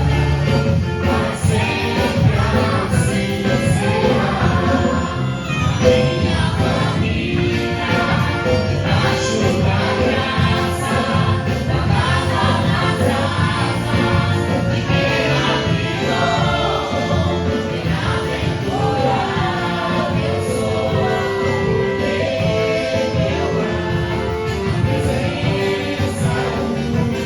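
Gospel worship song: several voices singing together over instrumental backing with a steady beat.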